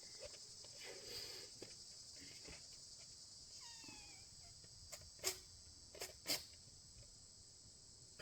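Steady high chirring of crickets, with two faint clicks about five and six seconds in.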